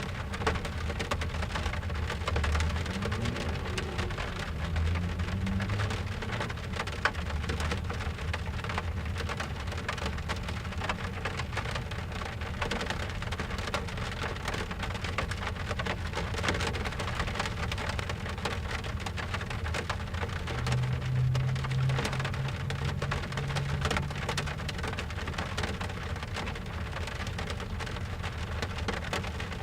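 Rain falling on a car's roof and windows, heard from inside the cabin: a dense, steady patter of drops over a low rumble.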